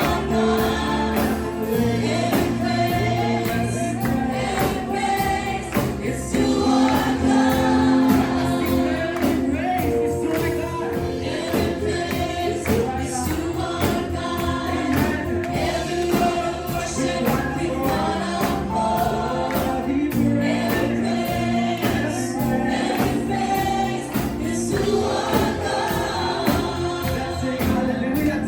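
Gospel worship music: a group of voices singing together over a band with a steady beat.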